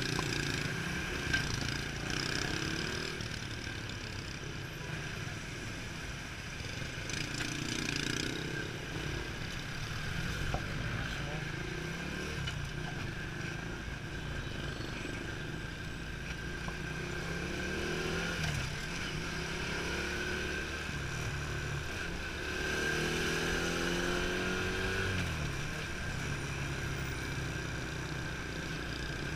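Motorcycle engine running while riding through slow city traffic, its pitch climbing and dropping several times in the second half as the bike speeds up and slows, over steady road and traffic noise.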